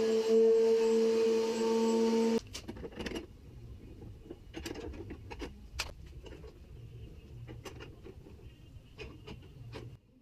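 Porter-Cable router running at full speed under a router table, a steady high whine. It stops abruptly about two seconds in, leaving quieter clicks and knocks of hands working under the table. At the very end the router starts again, its whine rising quickly to full speed.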